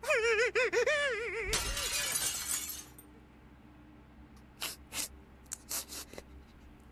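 A high warbling wail, cut off about a second and a half in by a crashing, shattering burst of noise that lasts about a second; a few short clicks follow near the end.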